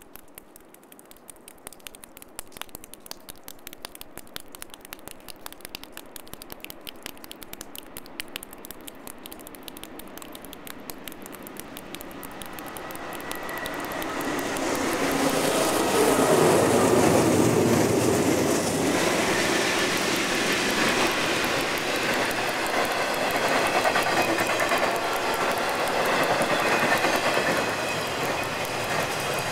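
A freight train carrying intermodal containers approaches and rolls past. Its noise builds from about halfway in and stays loud to the end. Before it, a light patter of fine ticks is heard.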